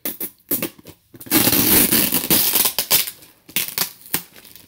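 Plastic packaging of a mail package crinkling as it is handled and pulled at while being opened: a few sharp crackles, then a loud dense crinkling for about two seconds, then scattered crackles again.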